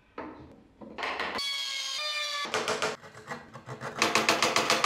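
Hand-carving on a wooden toy car body: a short pitched squeak, then a fast, even run of sharp scraping strokes as a small carving gouge cuts a groove in the wood near the end.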